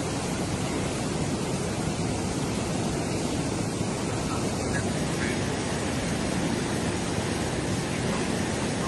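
Fast-flowing flash-flood water rushing steadily, an even noise with no let-up.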